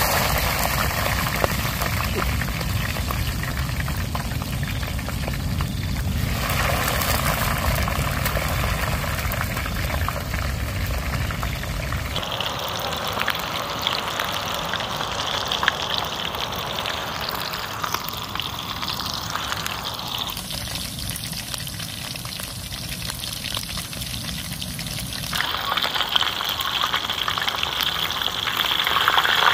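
Food sizzling as it fries in oil in a small aluminium camping pan on a portable gas stove, the sizzle changing abruptly several times. Near the end the food is stirred in the pan with a utensil.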